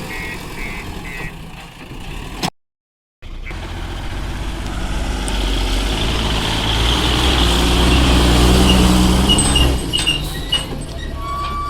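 Heavy diesel machinery engine working under load, climbing to its loudest a few seconds in and easing off near the end. A reversing beeper sounds at the start, and the sound cuts out briefly between them.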